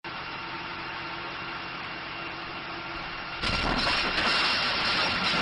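A steady engine-like drone, then about three and a half seconds in a sudden loud explosion as the house front blows out, the noise staying loud afterwards.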